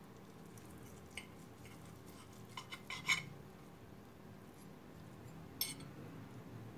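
Metal knife and fork clinking and scraping against a plate while cutting through a filled crepe: a light clink about a second in, a quick run of clinks around three seconds in (the loudest), and one more near the end.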